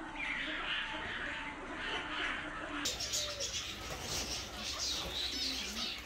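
Mixed flock of aviary birds calling: many short, high chirps throughout, with doves cooing lower underneath.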